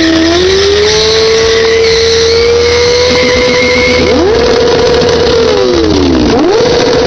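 Sport motorcycle engine held at high revs in a stationary burnout, the rear tyre spinning against the pavement. The revs climb early on, hold steady, then drop once about five and a half seconds in and climb straight back up.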